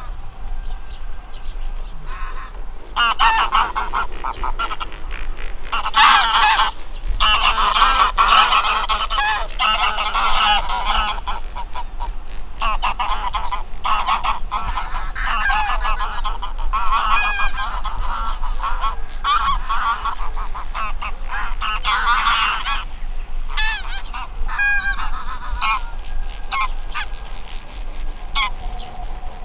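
A flock of geese honking in flight, many calls overlapping in a continuous chorus that swells loudest in the first third and again about two-thirds of the way through.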